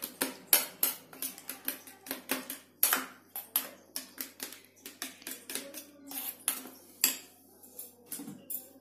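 Eggs being beaten by hand in a small stainless-steel bowl: quick clinks of the utensil against the metal bowl, about three a second, thinning out to a few scattered clinks near the end.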